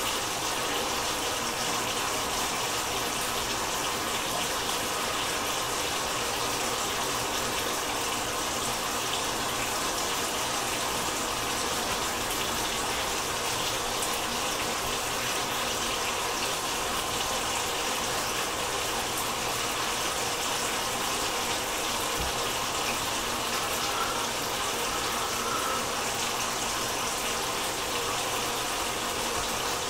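Chicken thighs cooking in a pan of sauce on a gas stove, giving a steady sizzle and bubble.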